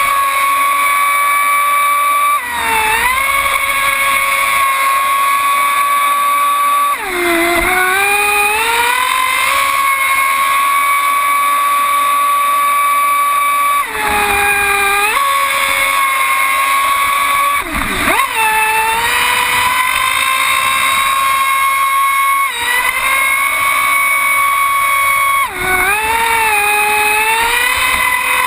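Traxxas Spartan RC speedboat's Velineon brushless motor running at speed with a steady high-pitched whine over the rush of water and spray. Five times the pitch dips and climbs back up as the throttle is eased and reapplied.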